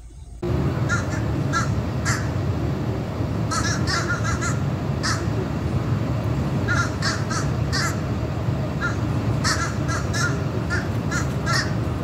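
Fish crows calling from the trees: short caws repeated again and again, many in quick pairs or triplets like the fish crow's "uh-uh", starting about half a second in over a steady low background rumble.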